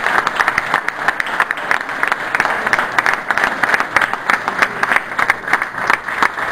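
An audience applauding with sustained, dense hand-clapping.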